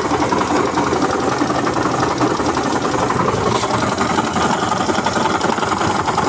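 Hero Destini 125 scooter's single-cylinder engine running steadily with a loud, rapid mechanical noise from a failed crankshaft main bearing, one whose balls have broken out.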